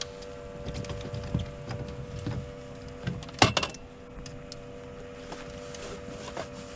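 Scattered knocks and rattles of gear and hands against a fibreglass boat as a big striped bass is landed, with one sharp knock about three and a half seconds in, over a steady low hum.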